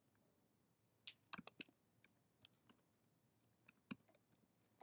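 About ten faint, separate keystrokes on a computer keyboard, with near silence between them.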